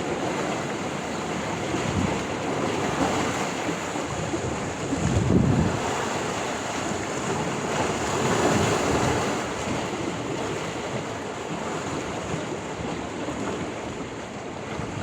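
Sea waves washing in steadily, swelling louder about five seconds in and again around eight to nine seconds, with wind buffeting the microphone.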